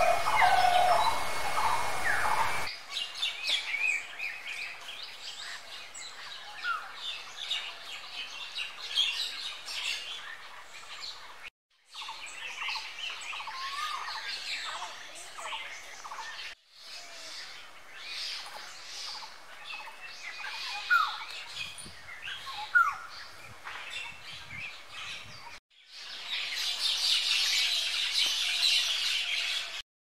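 Wild birds calling and chirping, heard in several separate stretches that cut off abruptly and restart. The last few seconds hold a denser chorus of high chirping.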